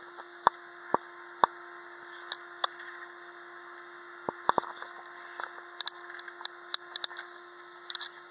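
Steady humming tone and hiss inside an Airbus A320 passenger cabin during taxi, broken by about a dozen irregular sharp clicks and knocks.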